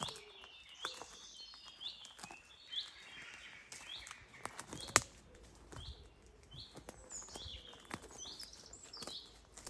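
Small birds chirping repeatedly: short high chirps following one another every half second or so. Scattered sharp clicks and ticks sound among them, one louder than the rest about five seconds in.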